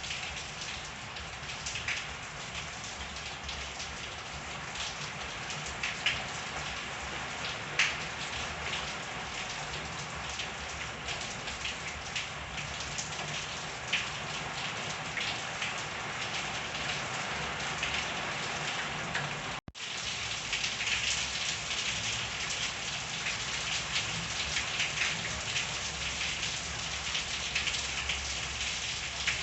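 Steady rain falling on surfaces, a constant hiss dotted with louder individual drop hits. The sound cuts out for an instant about two-thirds of the way through, then carries on slightly denser.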